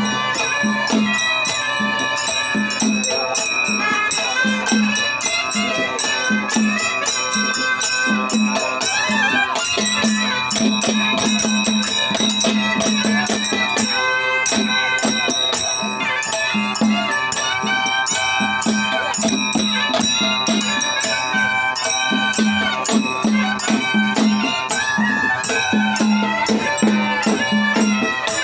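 Live Indian folk music: a barrel drum beating a steady rhythm under a dense, fast rattling of jingles, with a sustained, wavering melody line above.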